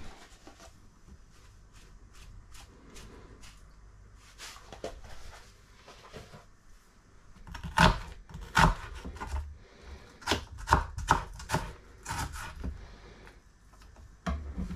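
Kitchen knife slicing an onion on a wooden chopping board, the blade knocking on the board with each cut. Faint clicks at first, then a run of sharp knocks, loudest from about eight seconds in.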